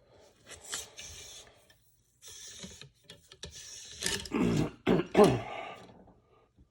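A few short rasping rubs, then a man loudly clearing his throat and coughing from about four seconds in; he has a head cold.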